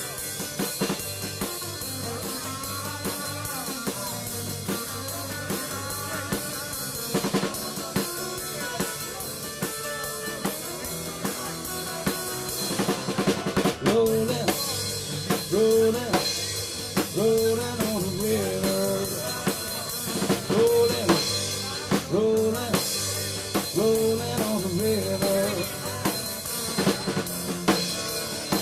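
Instrumental rock music led by a drum kit keeping a steady beat, with pitched riff notes over it that grow louder about halfway through.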